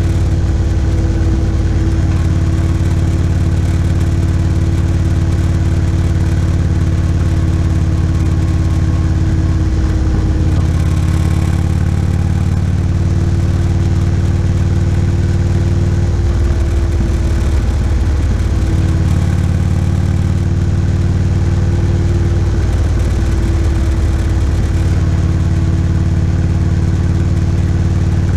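Motorcycle engine running steadily at cruising speed while riding, heard from a bike-mounted camera, with a few brief dips in the low rumble as the throttle eases.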